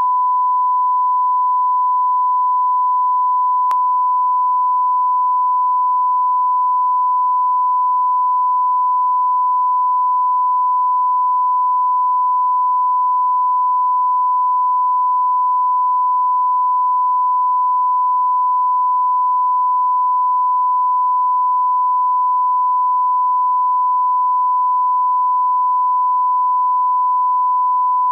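Steady 1 kHz reference test tone, one unbroken pure pitch: the line-up tone that goes with colour bars for setting audio levels.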